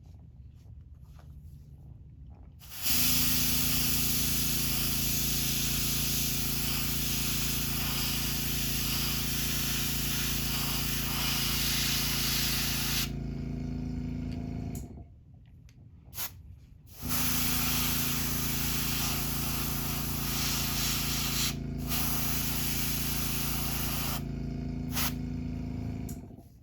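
Airbrush spraying paint onto a crankbait in two long hissing passes of about ten seconds each, with a short puff between them. A steady hum, typical of an airbrush compressor, runs under the hiss.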